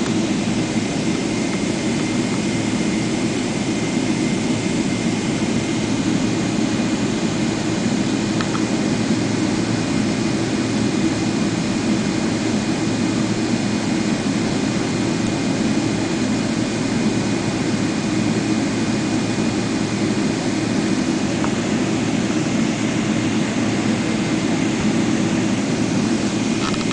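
Boeing 777-300 jet engines running at takeoff power: a loud, steady, even noise with a faint high whine held throughout.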